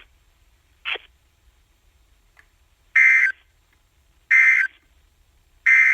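Emergency Alert System end-of-message data code: three short, harsh, buzzing digital bursts about a second and a half apart, signalling the end of the broadcast alert. A brief faint blip sounds about a second in.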